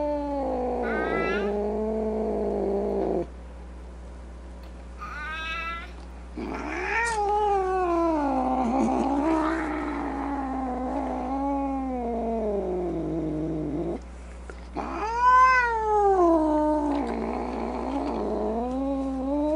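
An animal's long, drawn-out calls, several in a row, each sliding up and down in pitch. The loudest call comes about fifteen seconds in.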